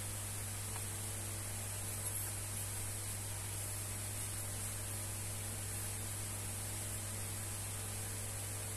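Steady low electrical hum with a constant high hiss underneath, with a couple of faint taps from handling the selfie stick about one and two seconds in.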